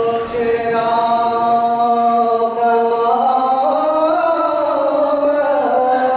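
Voices of an anthem group singing in long held notes, a chant-like opening. One note is held for about three seconds, then the pitch glides slowly up and holds again.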